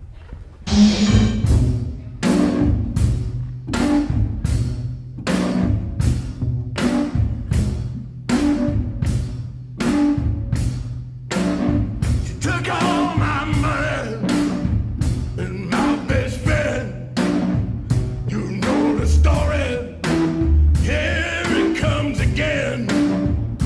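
Recorded song with a heavy, steady drum beat of about two hits a second, starting about a second in. A singing voice joins about halfway through.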